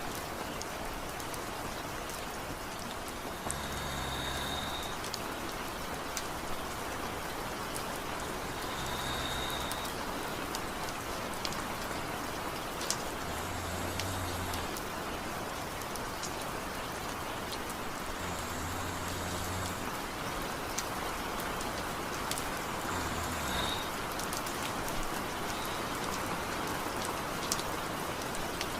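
Steady rain with scattered ticks of drops, and a man snoring lightly: five low snores about five seconds apart.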